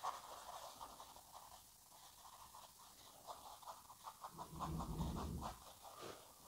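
Faint scratching of a paintbrush dabbing thick dark oil paint onto canvas in short repeated strokes. About four and a half seconds in comes a soft, low rush lasting about a second.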